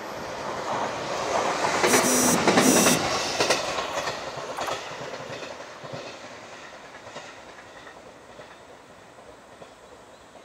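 Passenger train passing close by on the line, wheels clattering over the rails, loudest about two to three seconds in and then fading steadily as it moves away.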